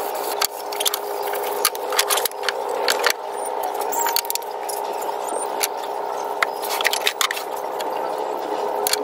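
Hand work on pallet-wood pieces at a wooden workbench: irregular knocks, clicks and scraping as small wood pieces are handled, rubbed and set down on the bench. A steady low hum runs underneath.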